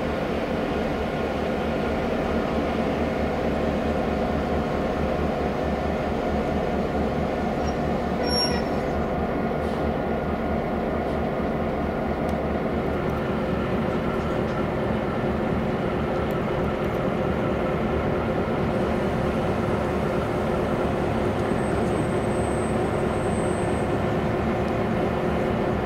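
Twin SSR S-class Streamliner diesel locomotives howling steadily at the head of a loaded grain train as they depart. Their EMD 16-567C two-stroke V16 engines hold an even, unbroken drone.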